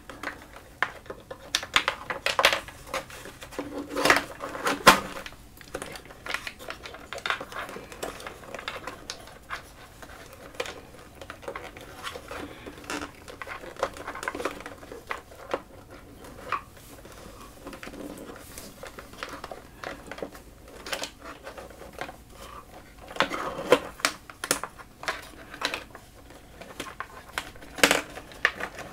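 Hands routing patch cables through a pedalboard: irregular clicks, taps and scrapes of handling, busiest in the first few seconds and again near the end.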